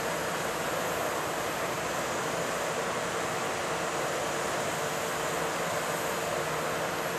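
The diesel engines of two mobile cranes running steadily under load while they lift a railcar. A faint steady whine joins in near the end.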